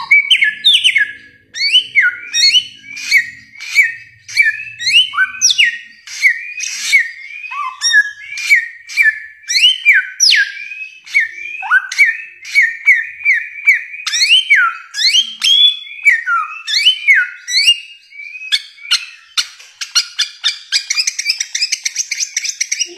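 Bare-throated whistler (samyong) singing a long, continuous run of loud whistled notes, about two or three a second, each a sharp upward or downward slur. From about twenty seconds in, a fast, higher chatter joins the whistles.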